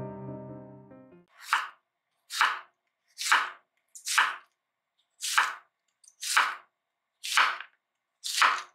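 Piano music fades out in the first second. Then a chef's knife slices an onion on a bamboo cutting board: eight unhurried strokes, about one a second, each a short crisp cut ending on the board.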